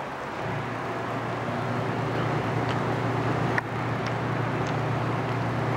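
Steady low rumble of a motor vehicle running nearby, slowly growing louder, with a few faint clicks.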